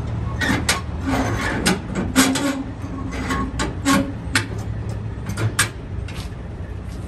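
Semi-truck diesel engine running steadily, with about a dozen irregular sharp knocks and clicks of metal being handled.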